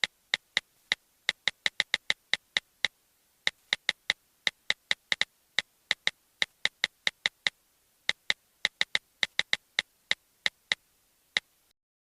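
Phone keyboard typing clicks: a quick, uneven run of short identical ticks, several taps a second, pausing briefly about three and seven and a half seconds in and stopping just before the end.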